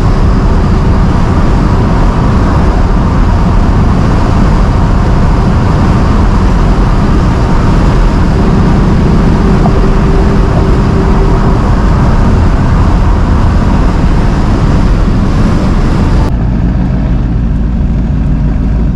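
1965 Ford Mustang Fastback driving, its engine and road noise loud and steady. About three-quarters of the way through, the higher part of the noise drops away suddenly, leaving a low rumble.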